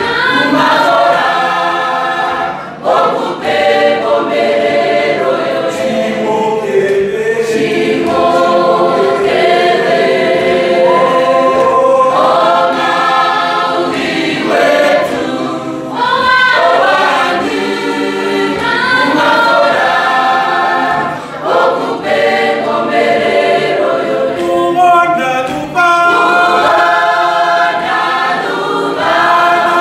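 Youth choir singing in several parts at once, in continuous phrases with brief breaths between them.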